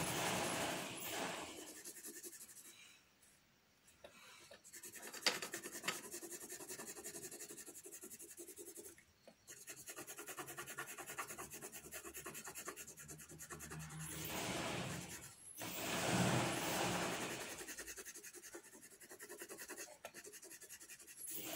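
Soft 10B graphite pencil shading on paper: quick back-and-forth scratching strokes, with a louder stretch of rubbing about two-thirds of the way through.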